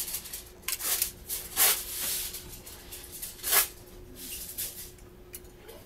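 Handling noise from the partly disassembled body of a Canon EOS 60D camera worked by hand: small scattered clicks and rustles of its metal and plastic parts. Two sharper, louder clicks come about a second and a half and three and a half seconds in, over a faint steady hum.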